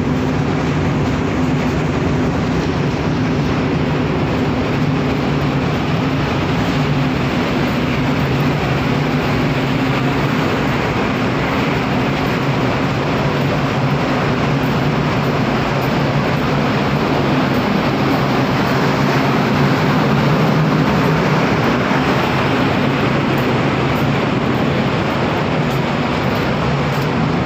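Cargo ship's engine running under way: a steady low hum with a constant rushing noise over it, unchanging throughout.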